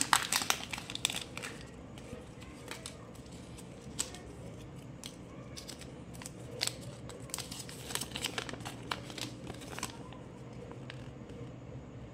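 Kinder Joy egg's plastic seal being peeled off and the toy's plastic wrapper and paper leaflet handled: a run of short crinkling, crackling plastic sounds, densest in the first second and again from about five to ten seconds in.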